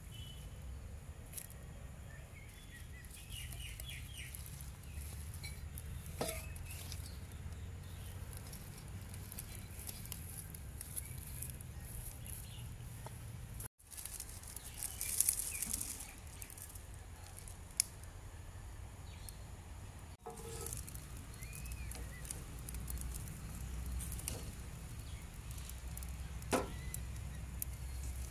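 Rural outdoor background with chickens clucking now and then over a low steady hum, and a few sharp knocks.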